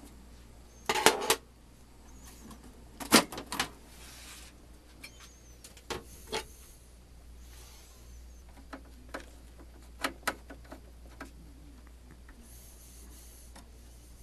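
Hard objects being handled and set down: a scattered series of clicks and clacks, loudest in two clusters about one and three seconds in, with a few lighter ones later.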